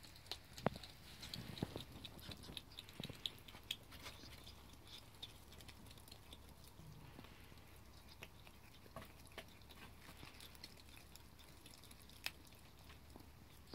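Ferrets chewing and gnawing raw bone-in chicken: a faint run of small clicks, thickest in the first few seconds, with a few sharper clicks near the start and one near the end.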